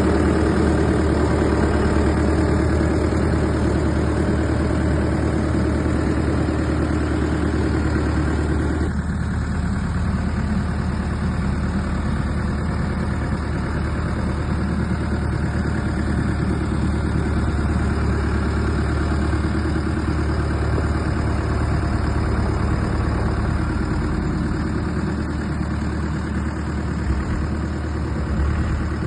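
Heavy machine's diesel engine running steadily with a deep drone; about a third of the way in, a higher-pitched hum drops out and the engine carries on.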